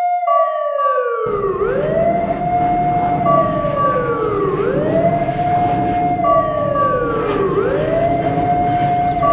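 Emergency alert alarm: a siren wailing in repeated cycles about three seconds long, each one rising quickly, holding, then sliding slowly down, with a steady high beep of about a second once in each cycle. A low rumbling noise comes in suddenly about a second in and runs on underneath.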